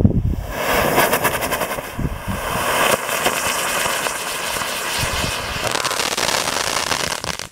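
A firework that was meant to climb stays on the ground and burns out there, giving a loud, steady rushing hiss with fine crackling for about seven seconds before cutting off.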